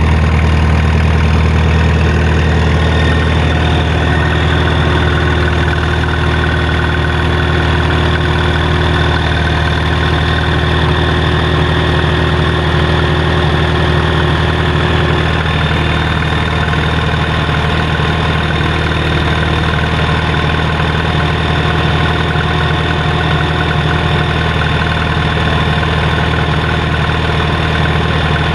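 Vintage tractor engine running steadily under load, driving a threshing machine by a long flat belt; the thresher adds steady higher-pitched machine tones over the low engine drone.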